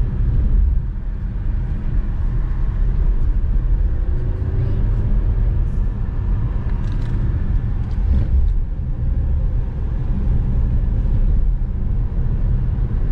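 Steady low rumble of a car driving at low speed, heard from inside the cabin: engine and tyres on the road.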